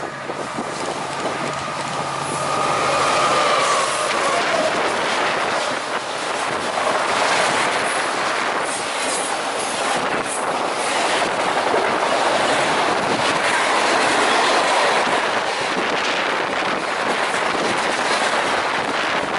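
Freight train passing at speed. The lead diesel locomotives go by in the first few seconds with a steady engine tone. A long string of autorack and covered hopper cars then rolls past with continuous wheel-on-rail noise and clicking over the rail joints.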